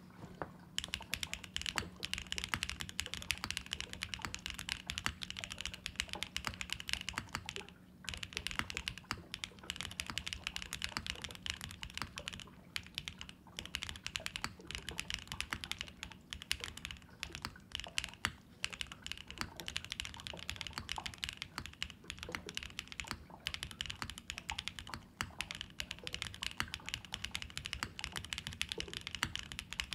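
Continuous fast typing on a Neo80 mechanical keyboard built without foam: Gateron White switches on a POM plate, with NeoStab stabilisers and KKB YunHai keycaps, giving a dense run of keystrokes with a couple of brief pauses.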